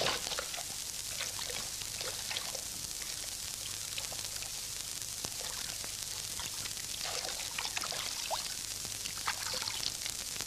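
Water dripping and trickling: scattered small drops plopping at uneven intervals over a faint steady hiss.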